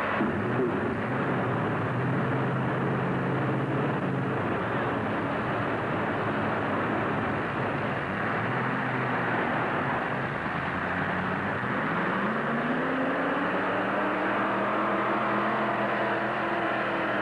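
Pulling tractor's engine running, then revving up about twelve seconds in and holding at high revs.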